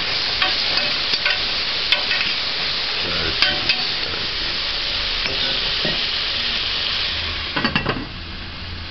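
Cow's head meat sizzling as it browns in an aluminium pressure cooker, stirred with a metal spoon that clicks and scrapes against the pot. Near the end a short cluster of metal knocks as the lid goes on, after which the sizzling is quieter.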